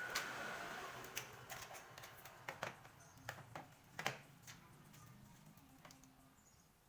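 A series of light, sharp clicks and taps, about a dozen over five seconds and the loudest about four seconds in, after a brief hissing rush at the start.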